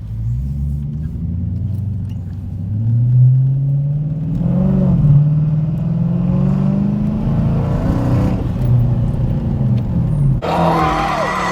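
Dodge Challenger R/T's 5.7-litre Hemi V8 accelerating hard, its note rising, dropping back at a gear change, and pulling on. About ten seconds in, a sudden harsher sound with high, sliding squeals comes in.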